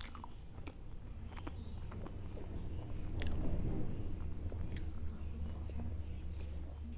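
Close-miked eating: a mouthful of makki ki roti with sarson ka saag being bitten and chewed, with small wet mouth clicks, loudest about halfway through. A steady low hum runs underneath.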